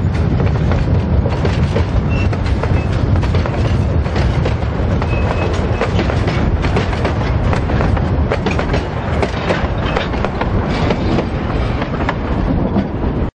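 Narrow-gauge railroad passenger cars rolling past, wheels rumbling and clicking over the rail joints, with a couple of brief faint squeals from the wheels on the curve. The noise eases a little as the last car goes by, then cuts off suddenly.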